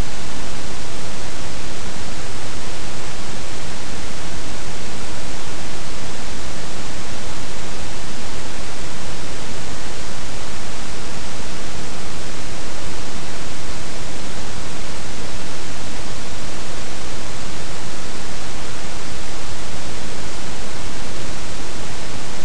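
Loud, steady hiss of even noise, like static, with no other sound and no change.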